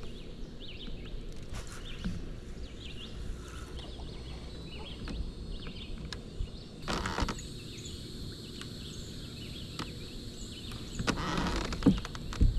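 Outdoor lake ambience: a steady low wind rumble with birds chirping in the background. There is a short rush of noise about seven seconds in, and near the end louder rustling and knocks as fishing rods and gear are handled on the kayak.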